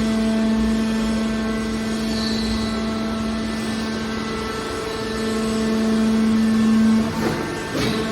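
A motor or engine running at a steady pitch, a continuous drone with overtones, with a few short knocks near the end.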